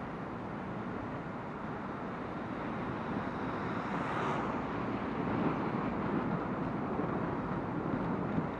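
Steady traffic and road noise. About four seconds in, a vehicle passes, its sound swelling and then fading.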